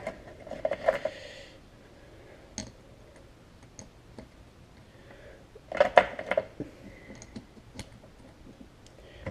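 Scattered small clicks and light metallic clinks of a hand tool working small carburetor parts, as the brass main and pilot jets are unscrewed. A louder cluster of clinks comes about six seconds in.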